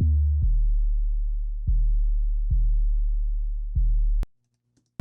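Soloed 808 bass playing long, sustained sub-bass notes, four new notes struck after the first, clean and sine-like with only faint overtones before saturation is applied. It cuts off suddenly about a second before the end.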